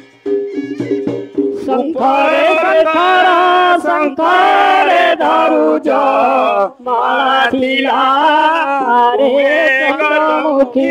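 Folk song: a single voice sings long, wavering melodic phrases over a steady held drone from an accompanying instrument. The drone sounds alone for the first second or two before the voice enters.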